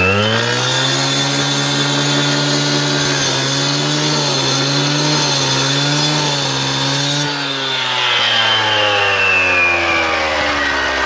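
A petrol disc cutter with a 300 mm blade runs at full speed, wet-cutting hard limestone paving, with slight dips in pitch under load. About seven seconds in the throttle is let off, and the engine winds down in a long falling pitch toward idle.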